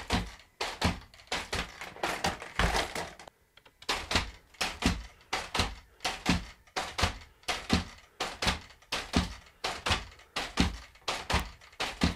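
Robot dog's four 3D-printed geared legs stepping in place: a steady run of knocks as the feet land and the back-drivable motor gearboxes take the load, about two to three knocks a second, with a brief pause about three seconds in.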